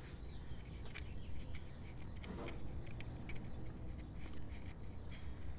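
Light, scattered rustling and rubbing of fingers handling a small rubber balloon as baking soda is worked into it, over a low steady background rumble.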